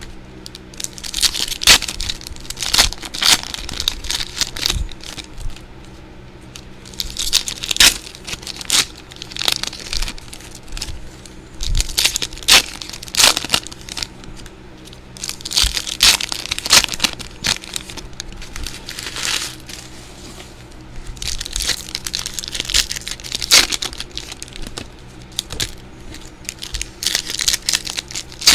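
Trading-card pack wrappers and packaging crinkling and tearing by hand, in irregular flurries of crackling with sharp ticks, as the packs of a new box are opened.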